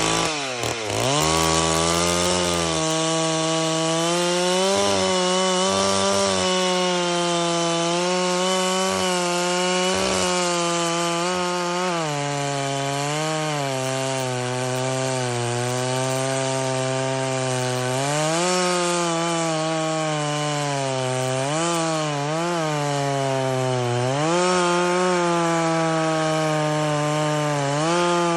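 Stihl 064 two-stroke chainsaw running near full throttle through a long cut in wood, its pitch sagging under the load of the chain and recovering several times.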